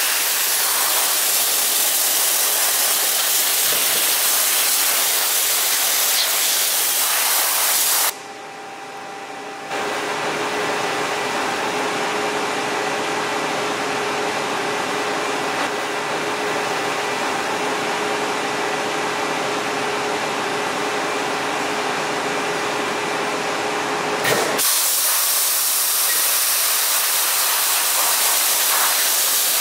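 Cold Jet dry ice blaster running, a loud steady hiss of compressed air and dry ice blast. About eight seconds in the hiss breaks off and gives way to a quieter steady hum with a few held tones. The hiss starts again with a slight click about twenty-four seconds in, as the blast is played over the knit upper of a running shoe.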